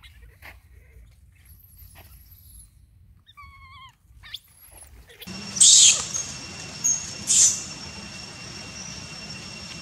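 Baby monkey crying: a short wavering call about three and a half seconds in, then two loud, shrill screams, the second about a second and a half after the first, over a steady hiss.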